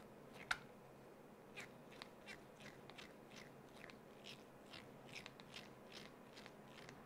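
Faint, irregular small clicks and crunching ticks from a hex driver turning a screw into plastic RC truck suspension parts. The loudest click comes about half a second in.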